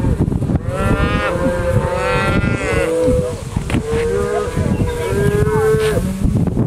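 Herd of Black Angus cattle mooing, many drawn-out calls overlapping one after another without a break.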